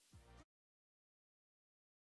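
Near silence: the music track has ended.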